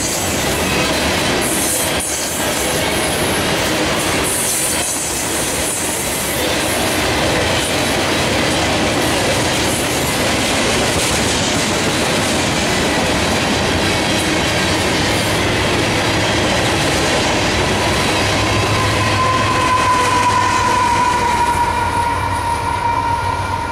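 Freight cars (tank cars and covered hoppers) rolling past close by: a steady rumble and clatter of steel wheels over the rail joints. A sustained high tone sets in about nineteen seconds in and holds to the end.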